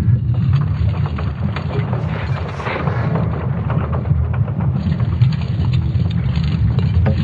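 A deep, steady rumbling drone with a crackling hiss over it: an eerie space-sound recording.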